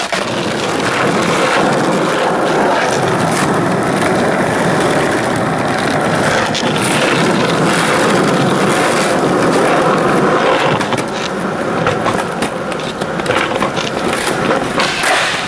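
Skateboard wheels rolling over rough asphalt, a steady loud rumble. About eleven seconds in it turns uneven, with scattered clicks and knocks.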